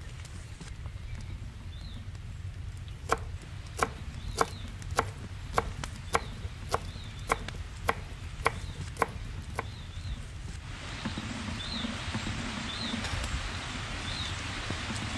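A large knife chopping vegetables on a wooden board: about a dozen sharp, even knocks at roughly two a second, which then stop. A small bird chirps again and again in the background, and a steady hiss comes up near the end.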